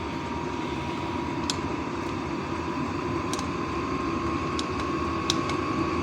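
Vevor diesel air heater running, its blower fan whirring steadily with a thin whine that rises slowly in pitch, and a few sharp ticks scattered through it.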